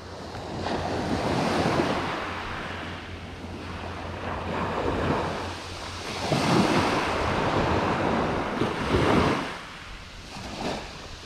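Mediterranean sea waves washing onto the rocky shore, the surf swelling and ebbing several times.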